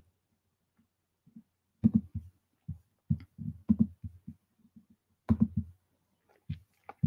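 A series of irregular, short low thumps, a dozen or so spread over several seconds.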